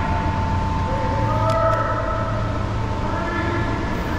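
Electric flywheel motors of foam dart blasters whining steadily, with a second motor spinning up about a second in and then holding its pitch. Two light clicks come soon after.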